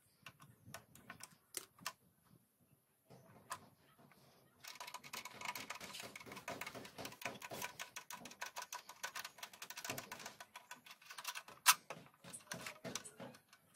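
Light, irregular clicking and rattling from hand work on a Honda Shine's front-wheel speedometer drive as the speedometer cable is being taken off. The clicks are scattered at first. About four and a half seconds in they turn into a dense, rapid clatter, with one sharper click near the end.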